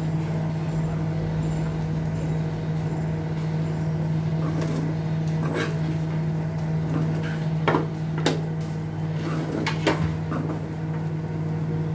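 Steel spoon scraping and knocking against a coated frying pan while fried rice is stirred and tossed, with several sharp scrapes between about four and ten seconds in. Under it runs a steady low hum.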